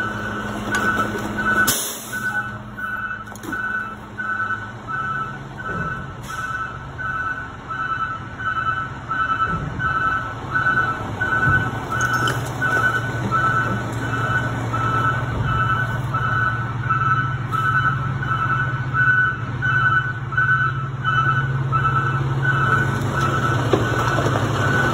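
Garbage truck's backup alarm beeping steadily, about one and a half beeps a second, over its diesel engine running; the engine grows louder from about halfway as the load is dumped.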